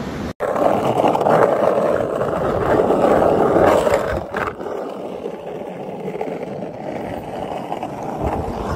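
Skateboard wheels rolling on an asphalt road, a steady rumbling hiss. It is loudest in the first few seconds, breaks off sharply twice and carries on quieter.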